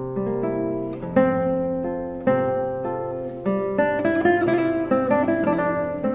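Background music: an acoustic guitar picking chords, each struck and left to ring, with busier picking in the middle.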